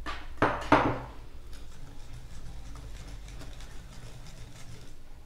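Wire whisk stirring flour into a thick cake batter in a ceramic bowl, its wires scraping and ticking against the bowl. Two sharp clinks come about a third of a second apart within the first second.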